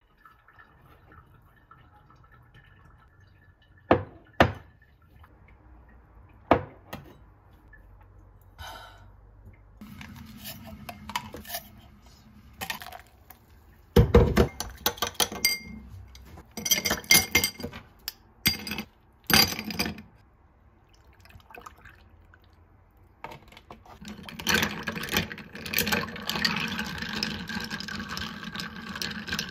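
Kitchen glassware sounds: a few sharp taps, then a loud clunk and a run of clinks as ice cubes go into a glass tumbler, and near the end a longer stretch of liquid pouring and ice being stirred as an iced coffee with milk is made.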